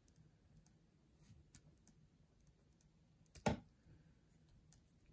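Quiet handling while writing on a postcard with a pen: faint light clicks and ticks, with one sharper tap about three and a half seconds in.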